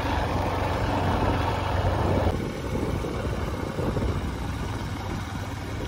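Motorcycle engine running as the bike is ridden, heard from the pillion seat as a steady rumble; the noise drops a little about two seconds in.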